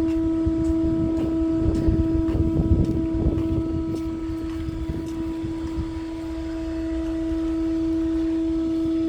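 Steady, even-pitched mechanical hum of a cargo ship's machinery, with low rumbling noise swelling and fading in the first few seconds.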